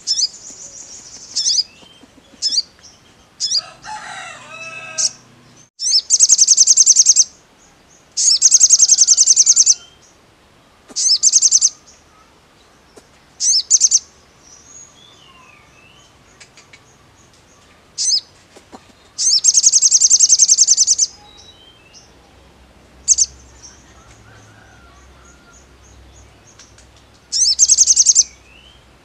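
Male olive-backed sunbird singing loudly: rapid, high trills of about a second each, four times, with short sharp chirps between them.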